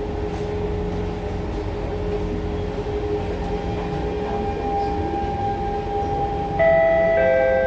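Siemens C651 metro train's electric traction equipment whining with steady tones over running rumble as the train draws into a station. Near the end a louder two-note electronic chime sounds.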